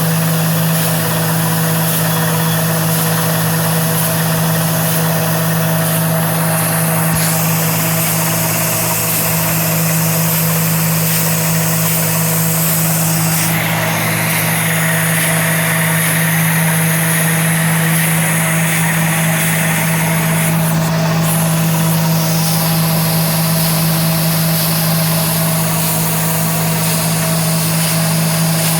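Water borewell drilling rig running: a loud, steady engine drone with a strong low hum, overlaid by a hiss that changes several times, with an extra hissing band for several seconds around the middle.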